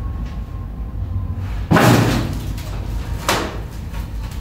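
Two knocks on a wooden door: a loud, deep thud about a second and a half in with a short ringing tail, then a sharper, lighter knock about a second and a half later.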